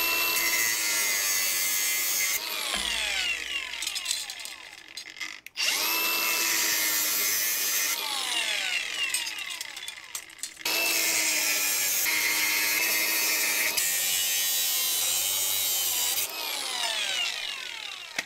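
Small angle grinder with a cut-off disc cutting through copper pipe in three runs of a few seconds each, the motor whining steadily and winding down between cuts. It is trimming the soldered fitting ends off the tubing so that the copper grades as cleaner number-one scrap.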